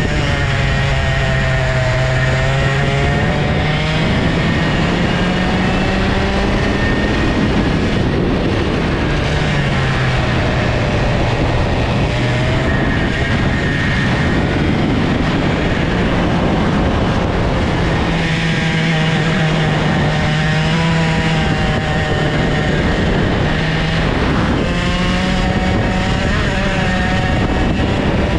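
IAME two-stroke kart engine at racing speed. Its pitch climbs steadily and then drops back several times as the kart accelerates out of corners and lifts for the next, over a steady rush of wind and tyre noise.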